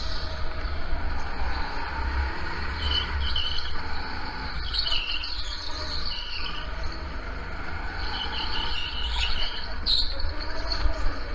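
Go-kart running hard on an indoor track, its engine note rising and falling with the throttle over a low rumble. Short clusters of high tyre squeals come through the corners, about three seconds in, again around five to six seconds, and around nine to ten seconds.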